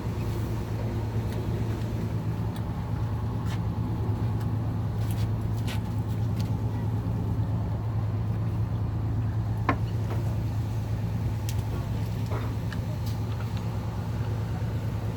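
Fishing boat's engine running with a steady low hum, and a few faint clicks over it.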